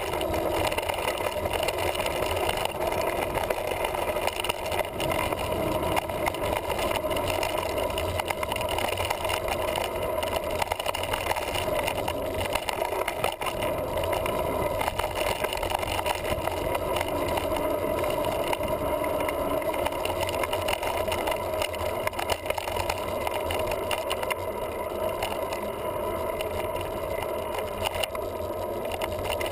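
Continuous ride noise from a mountain bike rolling down a dirt trail, picked up by a GoPro mounted on the bike: tyre rumble and wind noise, with a dense, irregular clatter of small knocks and rattles.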